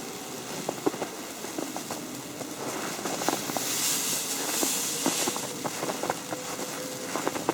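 Falling snow ticking and pattering irregularly on an umbrella, over a steady hiss that swells for a couple of seconds in the middle.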